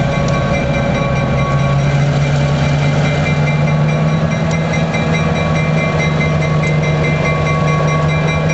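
EMD 567 diesel engine of a GP7u locomotive running steadily as the locomotive rolls slowly toward the listener, its low drone growing stronger about a second and a half in.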